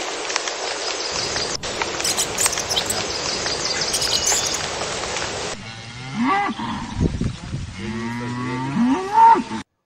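Black-and-white dairy cows mooing several times, low calls that rise and fall, starting about six seconds in and cutting off suddenly near the end. Before the calls there is a steady hiss with faint ticks.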